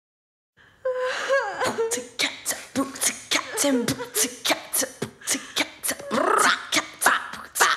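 Beatboxing: a voice making a steady drum rhythm with the mouth, with sharp kick and snare clicks several times a second, mixed with short pitched vocal sounds and glides. It starts just under a second in, after a brief silence.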